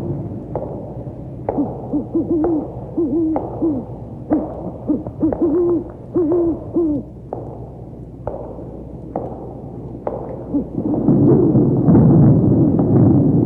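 Owl hooting in a run of short repeated calls, over sharp clicks or knocks scattered throughout; a louder rushing noise swells up near the end.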